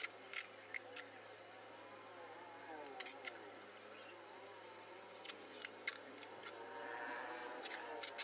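Keys of a loose replacement laptop keyboard for an Acer Swift SF314 being pressed one at a time, giving short, scattered clicks in uneven bunches as each key is tested to see that it registers.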